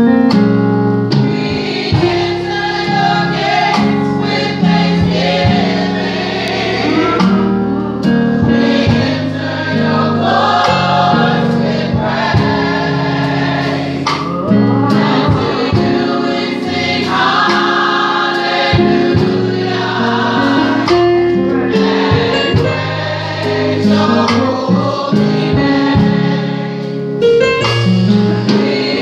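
Women's gospel choir singing a praise song, led by a solo voice on the microphone, with electronic keyboard and drum accompaniment.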